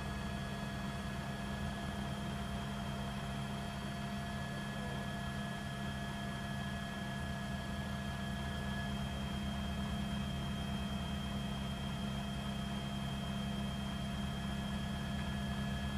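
Steady drone of a news helicopter in flight: a low hum with a fast flutter, several thin whining tones above it and a constant hiss. One of the whining tones drops out about nine seconds in.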